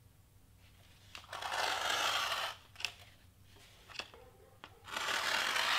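Craft knife blade drawn across foam board, two scraping strokes, the first about a second in and the second near the end, with a couple of light taps between.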